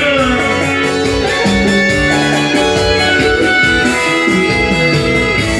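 A live band playing an instrumental passage of a song, with an electronic keyboard holding notes.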